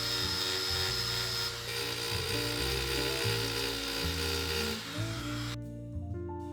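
A small power tool grinding and cutting, with a steady high whine, as the tang relief is cut into a slip joint knife handle. It stops abruptly about five and a half seconds in, leaving background music.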